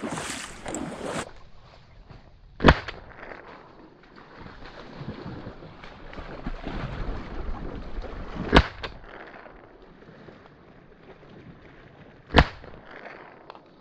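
Three shotgun shots several seconds apart, each a single sharp report, over faint wind and rustling.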